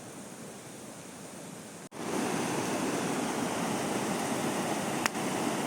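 Waterfall's rushing water, a steady even noise that jumps abruptly louder about two seconds in, with a single short click near the end.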